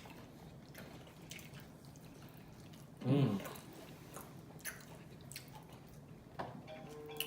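Close-up mouth sounds of eating fried chicken: wet chewing and lip-smacking clicks at irregular moments, with one brief, louder vocal sound about three seconds in.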